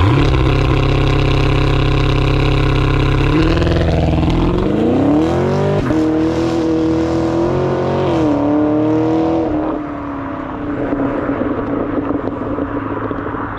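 A Camaro SS 1LE's naturally aspirated 6.2 L V8, through the factory NPP exhaust, doing a standing launch. It holds steady revs for about three seconds, then climbs in pitch as the car accelerates, drops in pitch at upshifts about six and eight seconds in, and fades as the car pulls away. The exhaust note is crisp.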